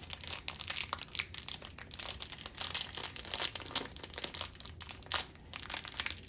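Crinkling of packaging being handled, most likely the small plastic bag holding the switch's wire connectors and screws, in a run of irregular crackles with a brief lull about five seconds in.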